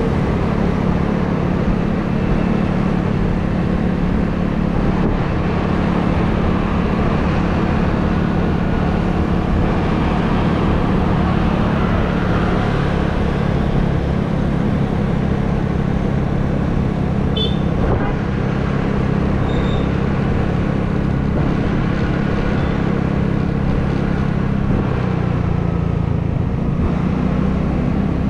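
A vehicle engine running steadily on the move through city traffic, under a constant haze of road noise. Its note dips briefly near the end and then comes back up.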